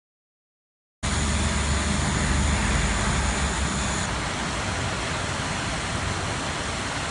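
Silence, then about a second in a DJI Mavic Pro quadcopter hovering overhead starts suddenly: a steady propeller buzz under an even rush of outdoor noise. A faint high whine stops partway through.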